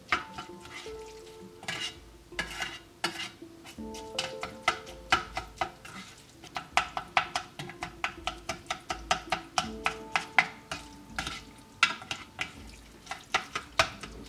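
A spoon stirring noodles in a stainless steel mess tray, mixing in the seasoning: a run of quick, irregular clicks and scrapes as the spoon knocks against the metal.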